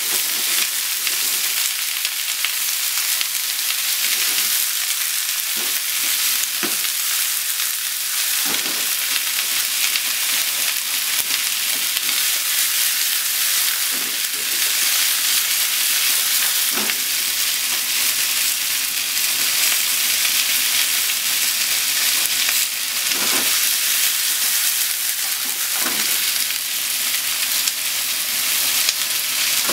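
Chicken, onion, carrot and green pepper sizzling steadily in a hot frying pan as they are stir-fried, turned over with wooden chopsticks, with a few light knocks as the food is moved about the pan.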